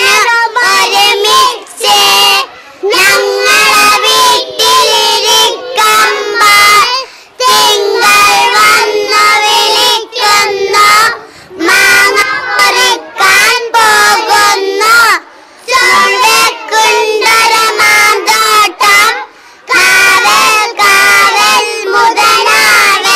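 Young children singing a song without instruments, led by a girl singing into a handheld microphone, with other children's voices joining in; the phrases are separated by short breaths.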